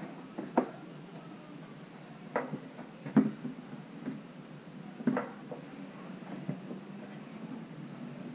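Headlight unit of a 2001 Suzuki Karimun being manoeuvred in its opening in the front body, knocking and clicking against the bodywork and mounts in a few separate sharp knocks spread over several seconds.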